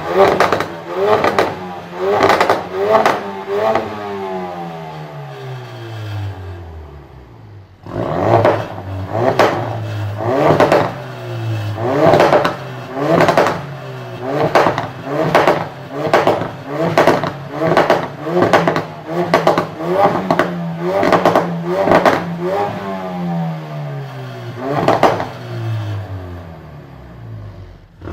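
2016 Ford Focus RS's turbocharged 2.3-litre four-cylinder exhaust, revved in quick repeated throttle blips, about three every two seconds, each with sharp cracks and pops. Twice the revs are let fall away in a long drop toward idle, and the blipping starts again abruptly about eight seconds in.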